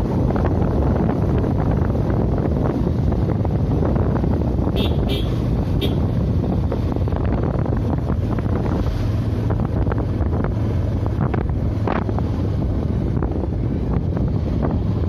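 Wind rushing over the microphone of a camera on a moving motorcycle, with the bike's engine and road noise steady underneath. A few brief, sharp high clicks about five seconds in.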